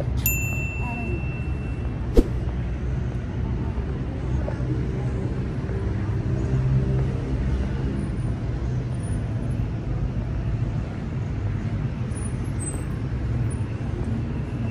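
Outdoor city background: a steady low rumble of distant traffic, with faint voices. A short high beep sounds near the start, a sharp click about two seconds in, and faint high chirps come later.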